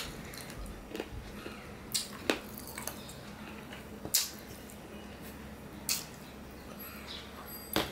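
Close-miked eating by hand: fingers squishing rice and curry together on a plate, with a handful of short, sharp wet clicks and smacks spread through it.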